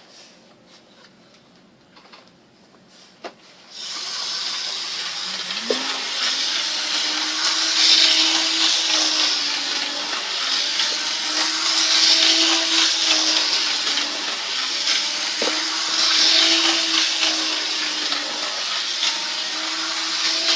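Electric model train starting up and running around a loop of track: a motor whir with rail noise that rises in pitch as it gets up to speed, then swells and fades about every four seconds as the train circles.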